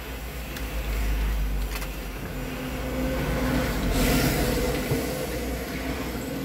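A car's engine runs, heard from inside the car with a window open: a steady low rumble and hum, with a louder rush of hiss about four seconds in.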